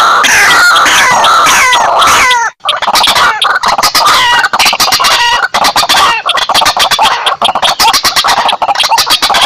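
Bird-lure recording of white-breasted waterhen and slaty-breasted rail calls, loud and close. A string of falling notes repeats about three times a second and breaks off about two and a half seconds in. A fast, harsh run of clicking notes follows.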